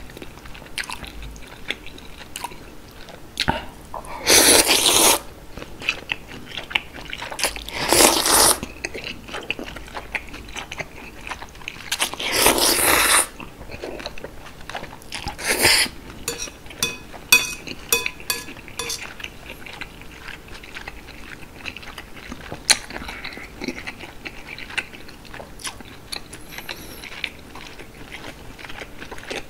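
Chewy jjolmyeon noodles in spicy broth slurped up close: four loud, wet slurps, each about a second long, with chewing and sharp mouth clicks between and after them.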